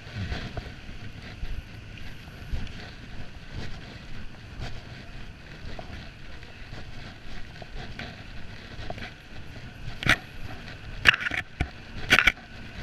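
Night street ambience heard while walking: a low steady rumble of vehicle engines, with wind on the microphone and faint footsteps. Near the end come three sharp, loud clicks about a second apart.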